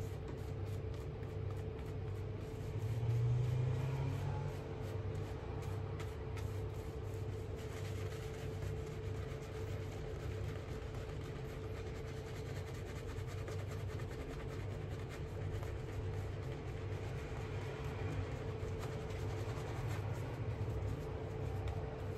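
Two-band silver-tip badger shaving brush being painted back and forth over lathered skin: a soft, fast, scratchy wet swishing of the bristles, over a steady low hum.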